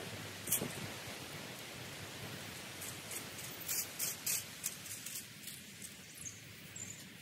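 Hands-on garden work among plants in a border: rustling of stems and foliage with a handful of sharp clicks, the loudest about half a second in and a small cluster a little past halfway. Wind rumbles on the microphone underneath.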